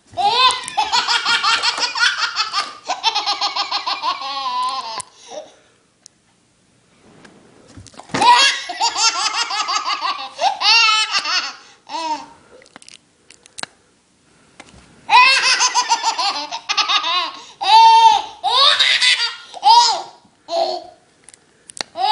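A baby laughing hard: loud, high-pitched belly laughs in rapid pulses, in three long bouts with short pauses of a few seconds between them.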